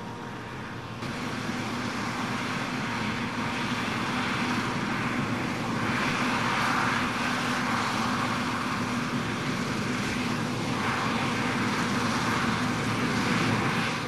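Claas combine harvester running steadily as it cuts grain, its engine and threshing machinery making a continuous drone with a steady hum. It gets louder about a second in and builds a little as the machine comes closer.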